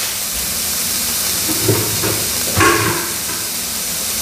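Diced smoked pancetta sizzling steadily in a hot non-stick frying pan, with a couple of brief knocks partway through.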